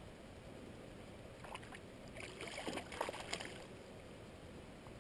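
Hooked sea-run cutthroat trout splashing at the surface of the water, a flurry of splashes from about one and a half to three and a half seconds in, the loudest around three seconds.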